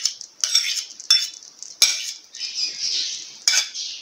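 Steel spoon clinking and scraping against a steel cup as ghee is scooped out, about five sharp clinks with a stretch of softer scraping in the middle.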